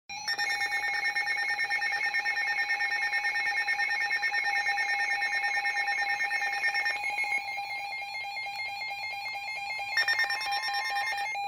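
Weather radio's alert alarm sounding for a Severe Thunderstorm Warning: a loud, fast-pulsing electronic tone that changes pattern about seven seconds in, comes back near the end and then cuts off.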